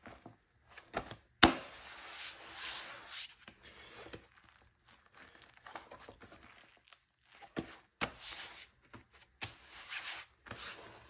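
A fabric-covered flexible armor plate bent and flexed by hand: the cloth cover rustles and rubs in bursts. A sharp knock about a second and a half in is the loudest sound, with a few smaller clicks later.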